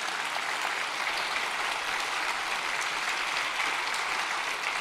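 A congregation applauding, an even clatter of many hands clapping.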